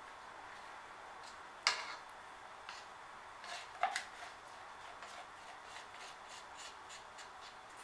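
A stir stick scraping acrylic pour paint out of a plastic cup, with one sharp tap of the cup a little under two seconds in and a few short scrapes around the four-second mark. Faint overall.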